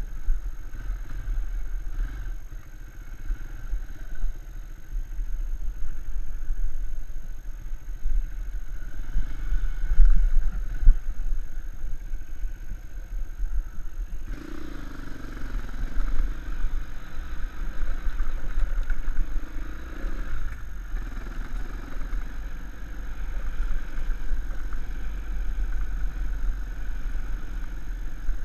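Dirt bike engine running at low speed on a rough trail, with heavy wind rumble on the microphone. The engine note changes and picks up about halfway through, and a few louder bumps come near the middle.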